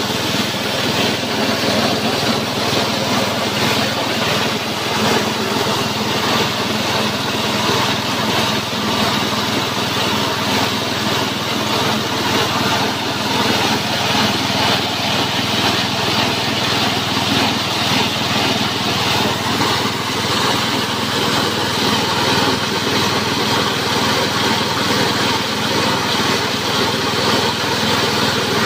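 Small petrol engine running steadily under load, belt-driving a JG 125 multifunction chopper-grinder as it mills feed. The engine's hum blends with the grinder's hiss and rattle.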